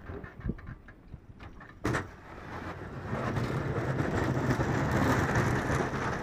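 Pickup truck engine pulling the truck while its V-plow pushes snow, growing louder from about three seconds in and easing slightly near the end. A sharp knock about two seconds in is the loudest single sound.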